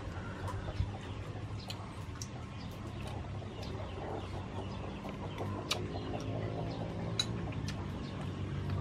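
Chickens clucking, with short sharp high clicks and chirps scattered throughout over a steady low background hum.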